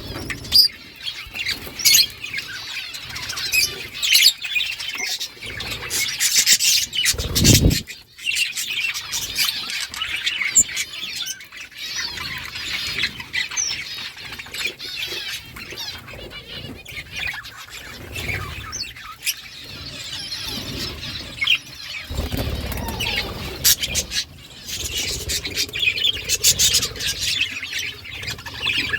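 A flock of budgerigars chattering, warbling and chirping continuously, many birds calling over one another, with one low thump about seven seconds in.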